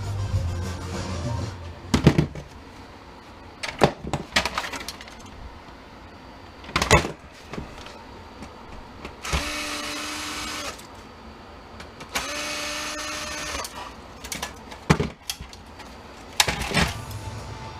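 Small power screwdriver or drill motor running twice, about a second and a half each time, with a steady whine, most likely backing out screws. Around the two runs come sharp clunks and clatters of metal and plastic printer parts being handled and set down.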